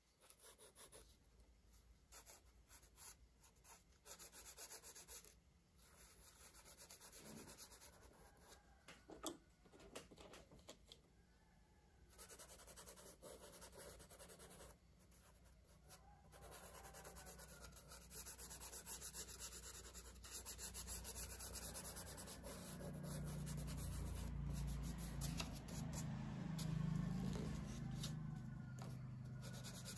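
Crayon rubbing on paper in many quick strokes as an area is coloured in. The strokes grow louder in the second half, where a low rumble joins in near the end.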